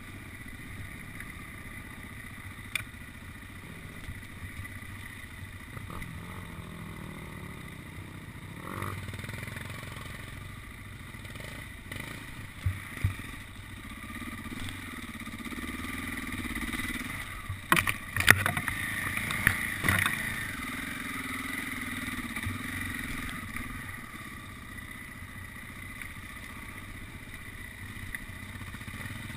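Enduro dirt bike engine running and revving up and down while riding a rough trail. Sharp knocks and clatters come from the bike over bumps, loudest in a cluster about two-thirds of the way through.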